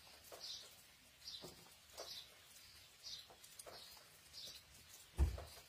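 A small bird chirping over and over, a short high chirp about every half second to a second. Faint light clicks come from pepper slices being set on a metal serving tray, and there is a low thump near the end.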